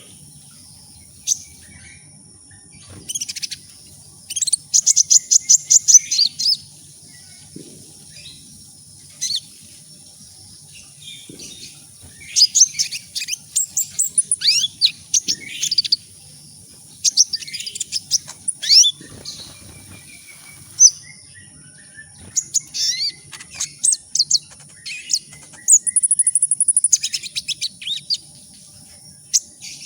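Kolibri ninja sunbird singing: bursts of rapid, high-pitched chirps and fast trills with short pauses between them, and a drawn-out high note near the end.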